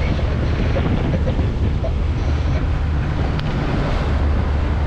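Wind buffeting the microphone on a moving boat at sea, over a steady low rumble and water rushing past the hull.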